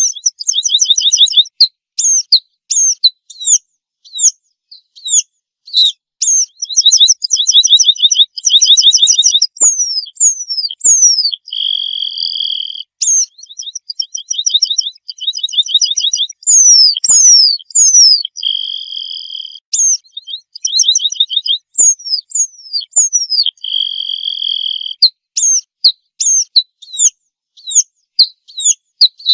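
Red-throated pipit singing: a long, varied, high-pitched song of rapid trills, sharp falling notes and drawn-out buzzy notes, repeated over and over.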